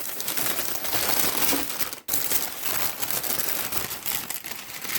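Packing paper crinkling and rustling as it is pulled out of a shipping box, with a short break about two seconds in.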